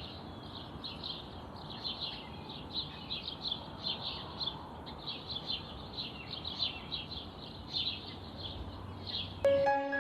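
Small birds chirping rapidly and continuously, several short high chirps a second, over a steady outdoor hiss. Near the end, gentle music with sustained tones comes in louder.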